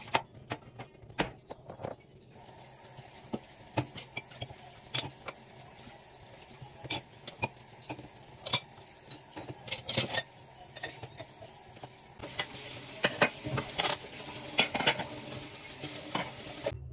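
Hands rolling and pressing soft yeast dough on a stone countertop: irregular taps and soft slaps of palms and fingers against the counter, with faint rubbing between them. It grows busier and louder in the last few seconds.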